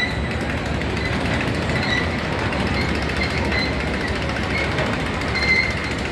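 Spinning-seat roller coaster train running along its steel track: a dense, steady rattle, with short high squeals every second or so.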